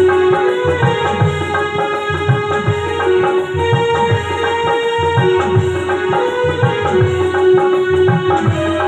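Live Indian folk-band music in an instrumental passage: a naal barrel drum plays a steady rhythm of low strokes that slide in pitch, under a keyboard melody of long held notes stepping up and down.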